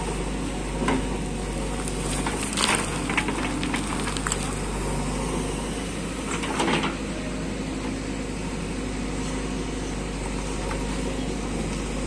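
JCB 3DX backhoe loader's diesel engine running steadily under load as the backhoe arm works, with a few short knocks and scrapes, the loudest about two and a half seconds in and again near the middle.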